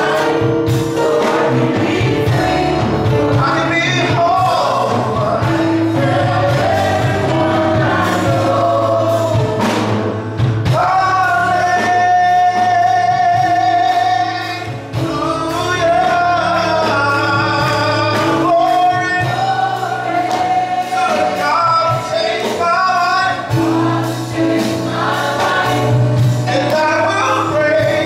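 A man singing a gospel song into a microphone, with a keyboard accompanying him in held chords.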